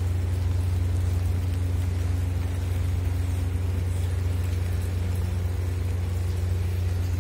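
Commuter train's diesel locomotive idling: a steady, unchanging low hum.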